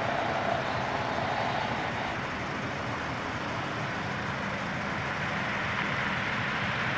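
Steady distant vehicle noise from a GP40-2 diesel locomotive approaching down the track, mixed with road traffic. A faint mid-pitched tone sounds in the first couple of seconds.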